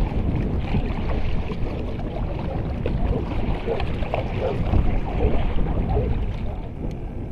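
Water splashing and gurgling along a kayak's hull as it moves through light chop, with wind buffeting the microphone.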